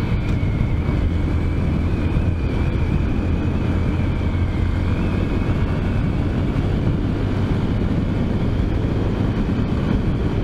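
Honda Grom's 125 cc single-cylinder engine running steadily at cruising speed, with wind rushing over the microphone.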